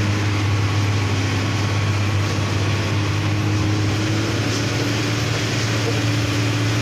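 Truck engine running steadily while driving, heard from inside the cab as a steady low drone with road noise.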